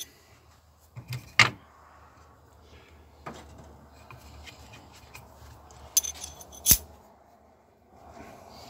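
Steel valve-seat countersink cutters clinking and knocking as they are handled in a wooden box and fitted onto a pilot rod: scattered sharp metallic clicks, the loudest about a second and a half in and again near seven seconds.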